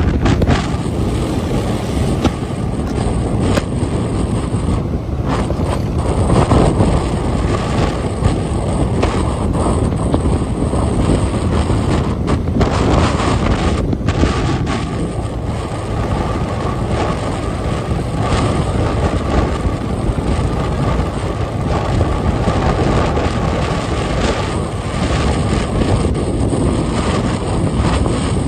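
Wind rushing over the microphone of a moving motorbike, with steady road and engine noise beneath it.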